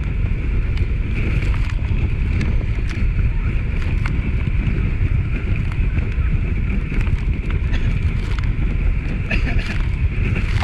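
Motorboat towing a banana boat, engine running steadily, with wind rushing over the microphone.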